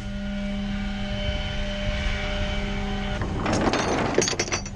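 A vehicle engine running at a steady idle with a constant droning tone. About three seconds in, a rush of noise with several sharp knocks and clatters rises over it.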